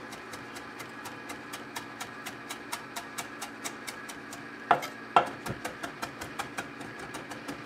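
Chef's knife chopping fresh dill on an end-grain wooden cutting board: quick, even knocks of the blade on the wood, about four or five a second, with two louder knocks a little past the middle.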